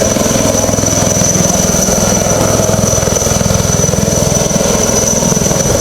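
Helicopter rotor beating fast and steady at close range, with a steady high whine over it, as the helicopter hovers or lifts away during a commando extraction.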